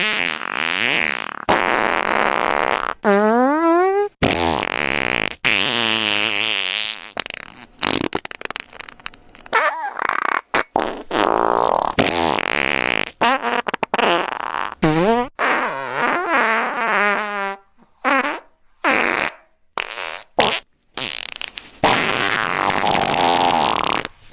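Fart sound effects played back to back with abrupt cuts between them: noisy blasts alternating with pitched, wavering ones whose pitch slides up and down. Over the second half they come as shorter bursts with brief gaps between them.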